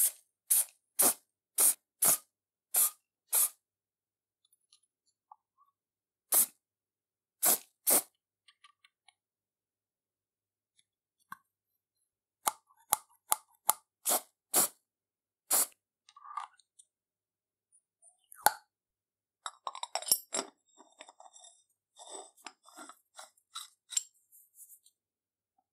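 Aerosol can of Motorex oil spray hissing in a quick series of short puffs, about six in the first few seconds and more later, as lubricant goes onto the steel parts. Near the end, small clicks, clinks and scraping of metal parts being fitted together by hand.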